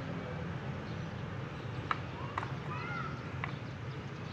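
Outdoor background: a steady low rumble with a few sharp clicks, and two short arching calls, a bird or a distant voice, about two seconds in.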